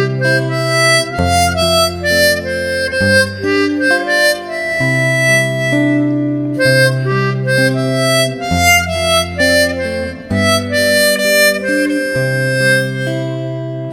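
Background music: an instrumental tune with a reedy, harmonica-like lead over sustained bass notes that change about every two seconds.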